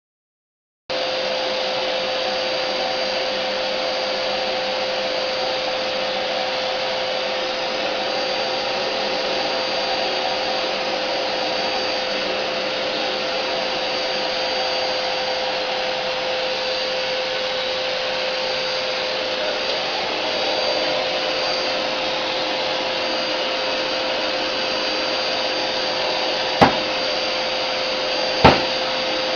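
Vacuum cleaner motor running steadily with a constant hum, starting abruptly about a second in. Two sharp clicks near the end.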